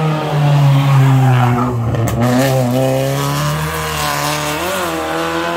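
Hill-climb race car's engine at high revs, dropping in pitch as it brakes into a hairpin, breaking briefly with a few sharp cracks about two seconds in, then climbing again as it accelerates out of the corner.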